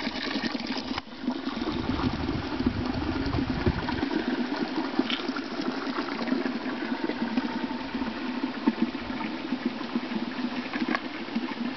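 Thin stream of spring water splashing from a metal spout into a stone basin. About a second in it cuts off sharply, giving way to a steady, lower rushing noise with a few faint clicks.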